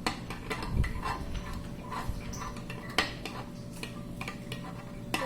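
A utensil stirring a runny glue-and-detergent slime mixture in a container, with scattered clinks and scrapes, the strongest about three seconds in.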